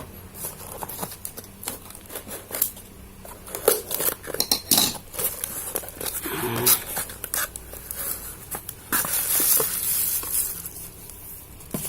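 A parcel being opened by hand: scissors and fingers working at tape and packaging, with irregular clicks, knocks and rustling, and a longer hissing rustle near the end.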